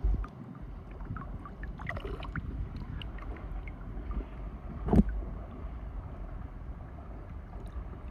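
Wind rumbling on the microphone, with faint scattered ticks and one sharper knock about five seconds in.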